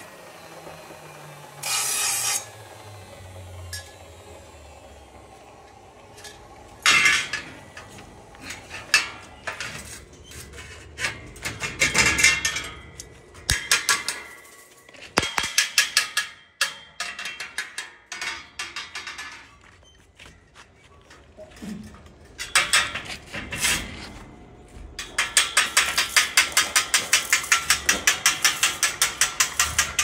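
Metalwork on light galvanized steel profiles: scattered knocks, clatter and scraping of the steel pieces. Near the end comes a run of fast, even taps, about four to five a second.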